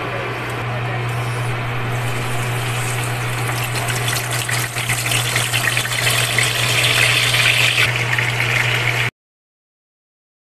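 Hot oil sizzling and crackling in a frying pan as pandan-leaf-wrapped chicken parcels go in, growing louder around six seconds in, over a steady low hum. It cuts off to silence about nine seconds in.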